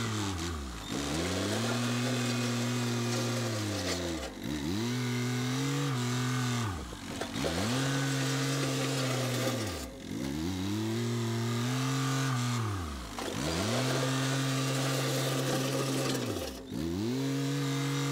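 An engine droning steadily, its pitch sweeping sharply down and briefly dropping out about every three seconds, six times over.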